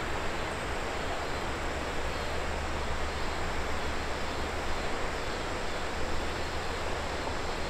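Steady rushing of a shallow river flowing over riffles, with a constant low rumble underneath.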